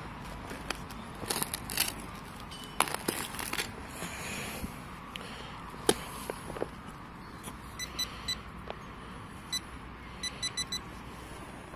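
Spade cutting and scraping into dry turf and soil, with scattered scrapes and a sharp click, then a handheld metal-detecting pinpointer beeping in short tones as it is pushed into the hole: two beeps about 8 s in and a quick run of three near the end, signalling metal in the hole.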